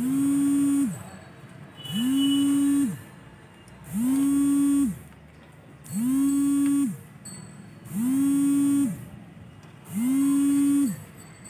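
Small hand-held electric motor tool scrubbing the copper tracks of a circuit board: it spins up, runs steadily for about a second and winds down, six times at even two-second intervals.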